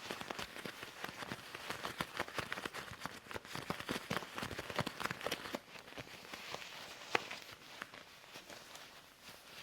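Loose leather gloves being rubbed, tapped and scratched: a dense, irregular run of small taps, crackles and leather rustles, thinning out somewhat near the end.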